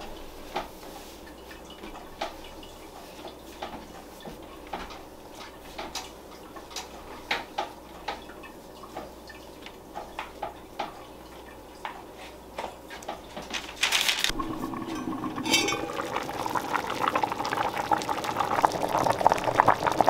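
Soft taps and knocks of hands shaping bread dough on a wooden table, then, about two-thirds of the way in, a pot of soup bubbling at a boil that grows louder toward the end.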